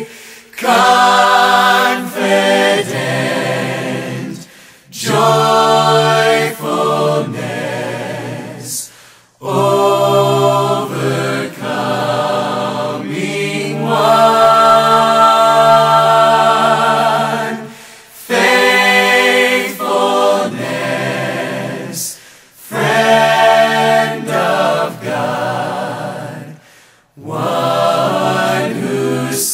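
Background music: a slow worship song sung by a choir of voices, in long phrases with brief pauses between them.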